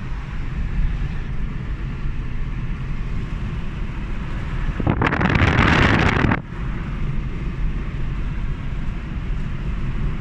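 Steady low road rumble of a car heard from inside the cabin while driving. About halfway through, a loud rushing noise comes in for about a second and a half, then cuts off suddenly.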